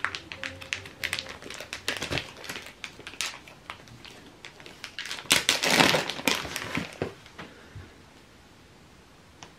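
Clear plastic wrapping being pulled and peeled off a cardboard box, crinkling and crackling in quick bursts. The loudest crinkling comes a little past halfway, and the sound dies away about two seconds before the end.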